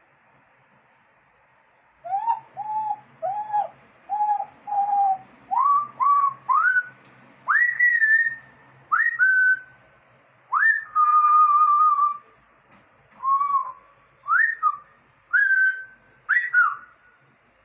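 A pet parrot whistling a run of clear notes. It starts with five short, level whistles, then moves to notes that swoop up to a higher pitch, with one longer, wavering whistle in the middle.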